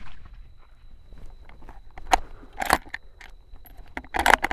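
Short crackling and crunching handling noises, with sharper clicks about two seconds in, again a little later, and a cluster near the end.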